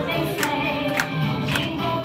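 A song with group singing over a steady beat, almost two beats a second.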